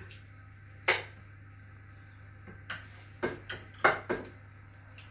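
Metal utensil clicking and tapping against a frying pan and an earthenware cassola as sausages are lifted out and set into the rice: one sharp tap about a second in, then a quick cluster of about five taps in the second half, over a low steady hum.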